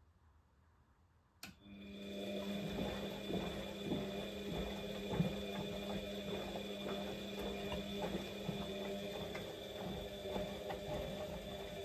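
Siemens Siwamat XS 1060 washing machine on its boil-wash cycle: after a near-silent pause there is a click about a second and a half in, and the drum motor starts with a steady hum. The drum turns the wet laundry with scattered soft knocks.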